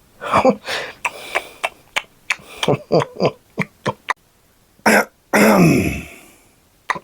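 Non-verbal puppet-character vocal noises: a quick run of short grunts and clicks, then one long burp whose pitch falls.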